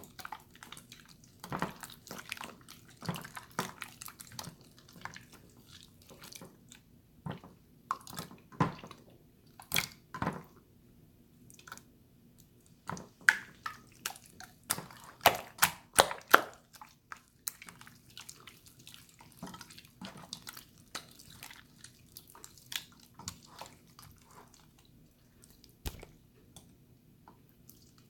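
Water slime being squished and poked by hand, giving irregular short wet clicks and squelches, with a run of louder ones about halfway through.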